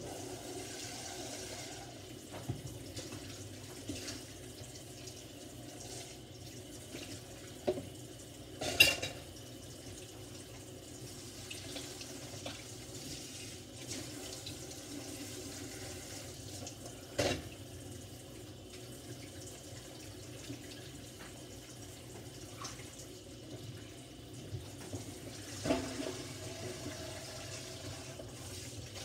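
Kitchen faucet running steadily into a stainless-steel sink while dishes are washed by hand under the stream. A few sharp knocks of dishware against the sink stand out, the loudest about nine seconds in.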